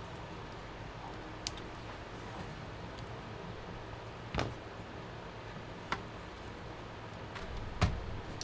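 Hands working on cables in a PC case: a few scattered sharp clicks and light knocks, about four in all, over a steady background hiss, the last one near the end a duller thump.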